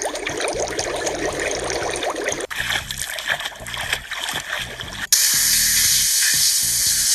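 Water sounds in abruptly cut pieces: a bubbling trickle for the first two and a half seconds, a quieter stretch, then a loud steady hiss like spray from about five seconds in.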